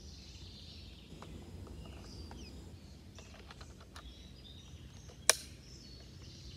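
A single shot from a Benjamin Bulldog .357 pre-charged pneumatic big-bore air rifle about five seconds in: one sharp crack with a short tail.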